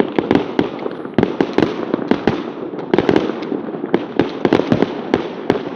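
Many fireworks going off at once: a dense, irregular barrage of sharp bangs over continuous crackling.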